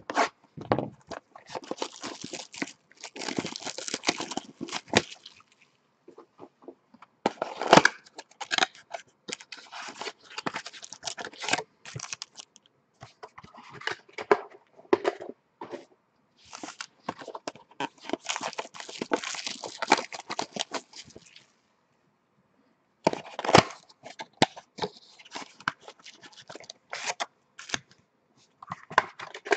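A 2013 Topps Finest Football hobby box being opened and its foil card packs pulled out and handled: bouts of tearing and crinkling with short pauses, and a few sharp knocks of the box on the table.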